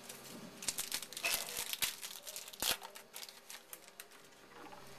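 A trading-card pack's wrapper crinkling and tearing as it is opened and handled: a run of irregular crackles lasting about three seconds, dying away near the end.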